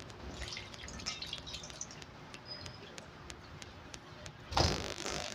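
Hands working small dough balls in a shallow stainless-steel basin of water: faint wet dabbing with light scattered ticks. About four and a half seconds in there is a brief, louder rushing noise.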